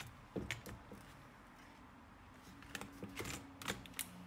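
Sharp plastic clicks and snaps of an Acer Aspire ES1-512 laptop's top case clips being pried loose from the bottom case by hand: a few clicks about half a second in, then a quick run of clicks in the last second and a half.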